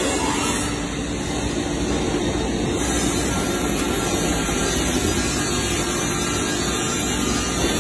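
Steady mechanical din of plywood production-line machinery running, a constant low rumble and hum with no breaks.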